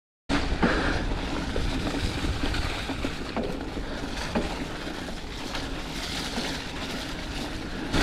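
Wind buffeting the microphone and the rumble of a bike being ridden over a forest trail, with a few sharp knocks from bumps. It is louder for the first couple of seconds, then settles.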